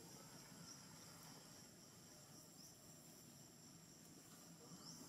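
Faint, steady high-pitched drone of insects, with three brief rising chirps spread through it.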